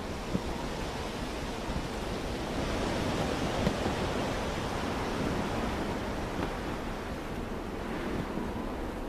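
Blizzard wind blowing in a steady rush, swelling in gusts a few seconds in and again near the end.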